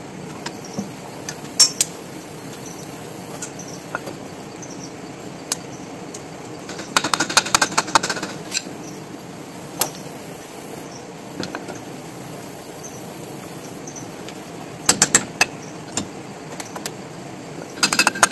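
Sporadic metallic clicks and clinks of hand tools and universal-joint parts handled at a steel bench vise, with a quick cluster about seven seconds in and more around fifteen seconds and just before the end, over a steady low hiss.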